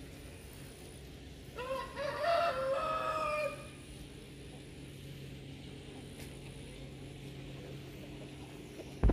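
A rooster crows once, a single call of about two seconds, over a steady low hum. A sharp knock comes near the end.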